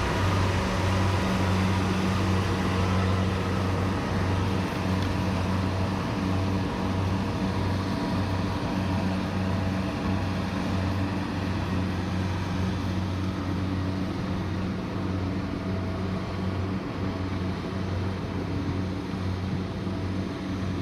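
Rice combine harvester's engine running steadily under load with a constant low hum, getting slightly quieter toward the end.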